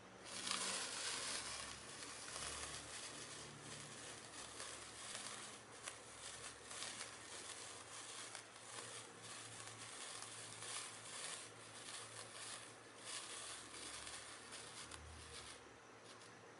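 Hand-held sparkler burning: a faint fizzing hiss full of fine, rapid crackles. It starts about half a second in and dies away near the end.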